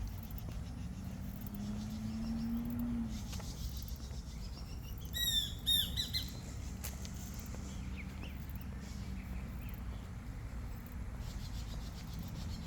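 A bird calling: a quick burst of several sharp down-slurred notes about five seconds in, then a few faint chirps, over a steady low background rumble.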